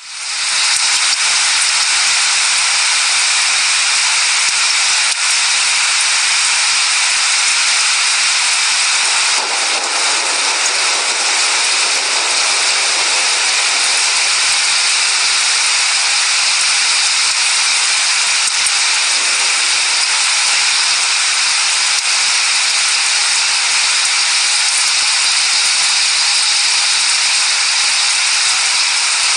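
Steady heavy rainfall, a loud even hiss that fades in at the very start. A low rumble of distant thunder swells about ten seconds in.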